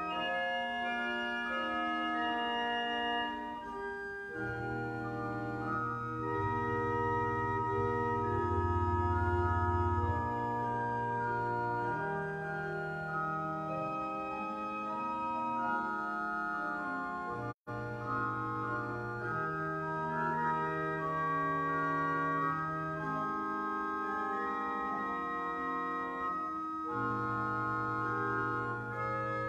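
Organ music: slow, sustained chords over long held bass notes. The sound drops out for an instant about two-thirds of the way through.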